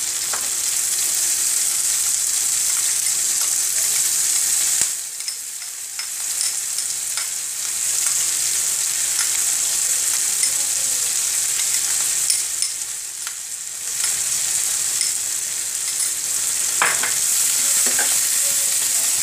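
Onions, garlic and cashews sizzling in hot oil in a kadai, stirred with a steel slotted spatula that clicks and scrapes against the pan. The sizzle is steady and dips briefly twice, and the spatula clatters near the end.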